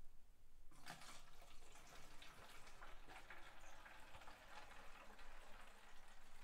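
Compost tea poured from a glass jar through a plastic funnel into a plastic gallon jug: a steady stream of liquid that starts about a second in and stops near the end.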